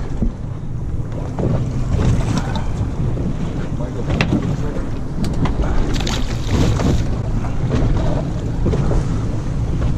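Wind buffeting the microphone over the low, steady rumble of a fishing boat at sea, with water lapping at the hull. A sharp knock comes about four seconds in.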